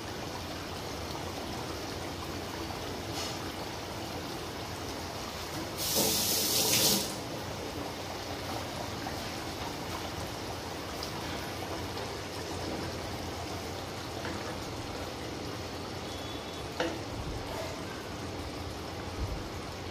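A pan of chicken curry simmering on the stove, a steady bubbling hiss. About six seconds in, a louder rush of noise lasts about a second.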